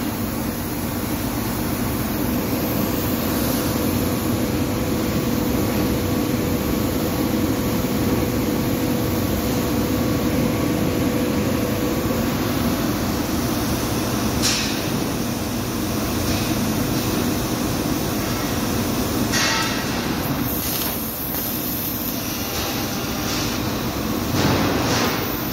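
Bodor CNC laser cutting machine running as it cuts sheet steel: a steady mechanical hum and rush, with a steady tone that fades out about halfway through and a few short, sharp noises in the second half.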